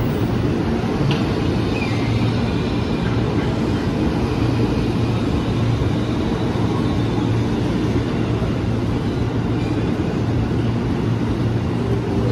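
Electric multiple-unit commuter train running past close by, a steady rumble of wheels on rails with a low hum that holds at a constant level.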